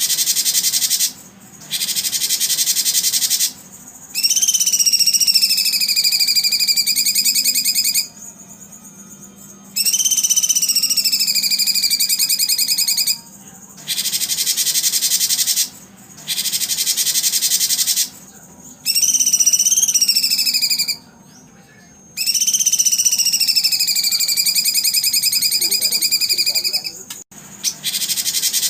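High, finely pulsed insect buzzing in loud bursts of a few seconds, broken by short gaps. Four long whistled bird calls sound over it, each sliding down in pitch and then holding steady.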